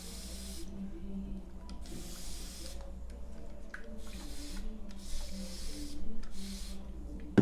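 Spray bottle misting aloe vera juice onto a section of hair: five short hissing spritzes, each half a second to a second long.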